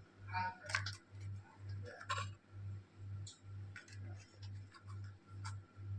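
A spoon lightly clicks and taps against a bowl while ground black pepper is added, a few scattered clinks, over a faint low hum that pulses about twice a second.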